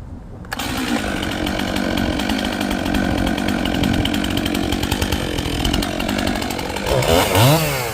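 Chainsaw running under load, cutting into a tree stem, starting abruptly about half a second in. Near the end its pitch dips and climbs again.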